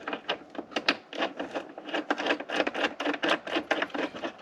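Ratchet wrench clicking in quick, uneven runs as it turns the nut on a battery cable terminal.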